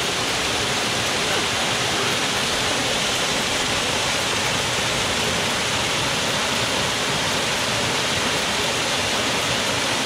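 A small waterfall pouring down a rock face into a shallow pool, splashing onto a man standing under it: a steady, even rush of falling water.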